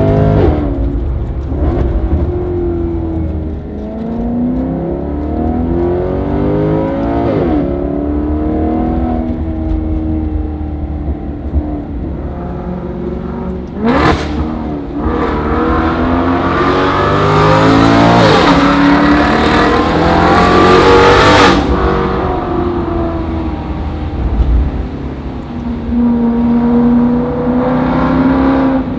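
Maserati GranTurismo V8 with a cat-delete, valved cat-back exhaust, revving and pulling up through the revs several times. Each climb drops back sharply. The longest and loudest pull comes about two-thirds of the way through and cuts off suddenly.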